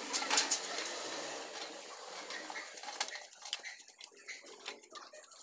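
Motorcycle clutch cover being washed by hand in a pan of petrol: a run of light clicks, knocks and scrapes of the cover and hands against the pan.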